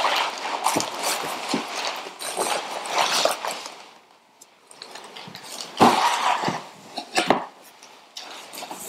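Plastic air-cushion packing rustling and crinkling as it is pulled out of a cardboard box, with a few sharp knocks of a box being handled and set down on a wooden table in the second half.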